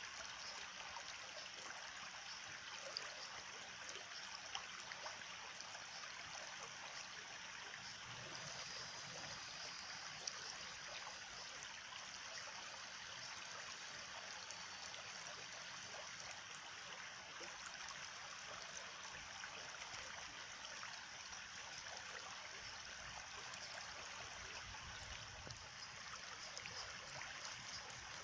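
Water flowing steadily in a stream, an even trickling and bubbling.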